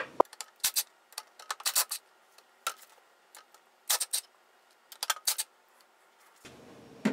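Irregular metallic clicks and clinks, some in quick clusters, from a cordless tool, a nut and a washer being worked off a gear on the Atlas horizontal milling machine's gear housing. They stop about a second before the end.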